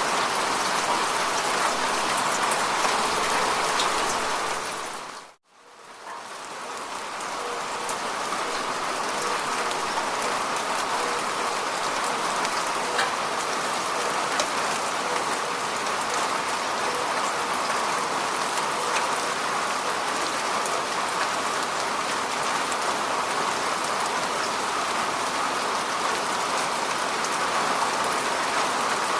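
Steady rain falling, a dense even patter. About five seconds in it fades out to a moment of silence, then swells back up over the next few seconds.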